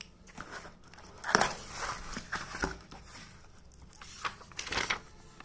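Cardboard shipping box and paper being handled. Irregular rustles and scrapes come as the box flaps are folded back and the book and a paper invoice are moved, with the loudest scrape a little over a second in and another cluster near the end.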